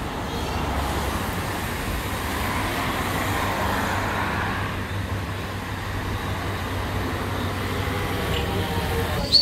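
Road traffic: a car driving past on the street, swelling and fading over a few seconds above a steady low rumble of traffic noise.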